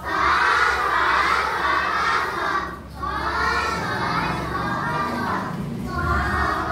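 A class of young schoolchildren reading aloud together in chorus, chanting a Thai spelling-out reading drill in phrases, with short breaks about three seconds and six seconds in.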